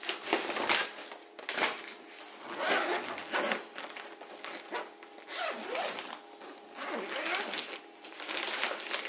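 Zip of a soft insulated cool bag being pulled open around its lid in several pulls, then the fabric lid rustling as it is folded back.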